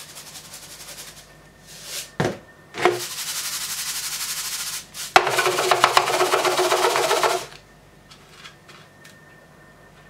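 Granulated sugar poured between a plastic jar and a plastic scale bowl, making a grainy hiss. There are two short knocks a little after two seconds, then a steady pour from about three seconds, and a louder, denser pour from about five seconds that stops at about seven and a half seconds.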